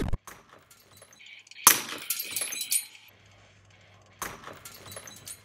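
A mug thrown against a brick wall smashes with a sharp crash, then its shards tinkle and scatter for about a second. A second, softer smash with scattering pieces comes about four seconds in.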